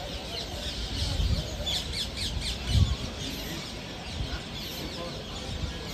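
Many birds chirping and squawking, short quick calls overlapping one another, busiest in the first half. Low thumps come about one second and three seconds in, the second the loudest.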